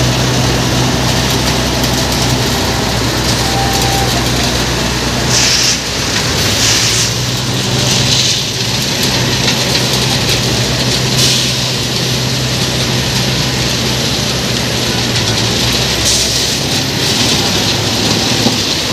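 JCB 3DX backhoe loaders' diesel engines running steadily under load, with a hiss of crushed stone that comes and goes as the front bucket pushes through the gravel pile.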